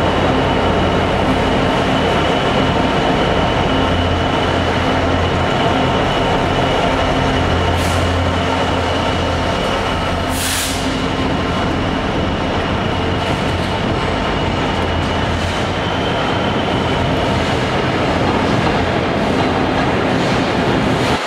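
Class 66 diesel-electric locomotive, its two-stroke V12 engine running steadily as it passes slowly, then its train of loaded track-panel wagons rolling by. There are two brief hisses near the middle.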